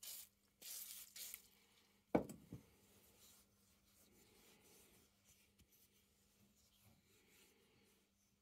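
Aerosol spray can with a straw nozzle hissing in two short bursts as it coats a steel punch in foam, followed about two seconds in by a single sharp knock, the loudest sound. After that, faint rubbing of hands working over the wet metal.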